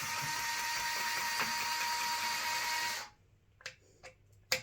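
Bosch Go cordless screwdriver running for about three seconds, driving a screw at its minimum torque setting, then stopping abruptly; a few light clicks follow.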